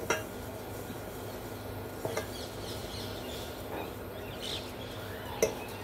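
Three short knocks of a utensil against the heavy pot of melting sugar, about two and three seconds apart, over a steady low hum. Faint bird chirps come in the middle.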